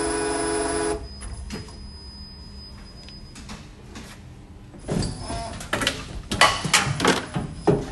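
Servo motor on an injection molding machine's hydraulic drive, running with a steady hum that cuts off suddenly about a second in. After a lull, loud metallic knocks and clatter come from the machine over the last three seconds.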